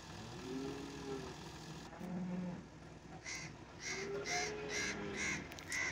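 A crow cawing about six times in quick succession, starting about halfway through.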